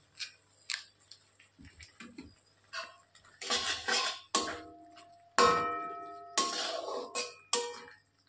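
Metal spatula stirring and scraping spice paste in an aluminium kadai, knocking against the pan so that it rings. A few light taps come first, then from about three and a half seconds in a run of louder scrapes and knocks.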